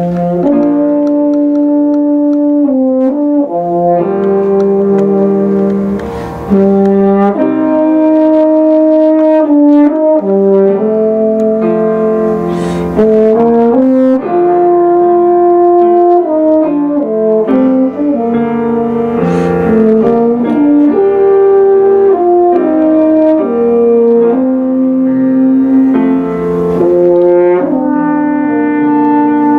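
Brass-and-piano trio playing: a French horn and an upright-bell brass horn play long held melody notes over piano accompaniment.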